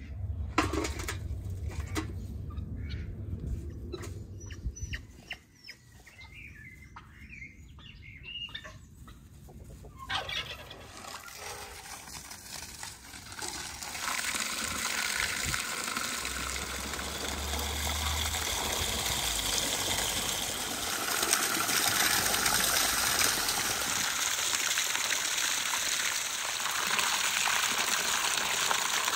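Light handling clicks and faint bird calls, then about halfway in water starts gushing into an enamel basin of whole sturgeon, a steady splashing rush that grows louder near the end.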